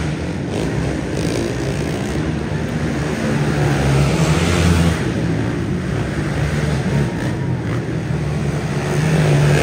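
Several sport quad (ATV) engines racing around a dirt track, revving up and down as they pass, loudest about four seconds in and again near the end.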